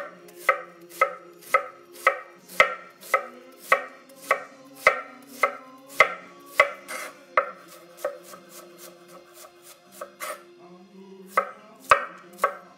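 Chef's knife slicing an onion on a wooden cutting board, the blade knocking the board about twice a second. Around two-thirds of the way through, the cuts grow fainter and sparser for a few seconds, then a few sharper knocks come near the end.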